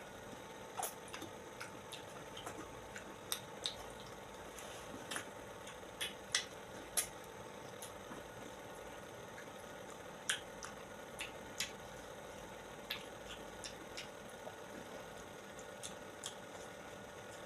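Wet mouth sounds of someone eating soft, juicy fruit: irregular smacks, sucks and clicks of chewing, over a steady low hum.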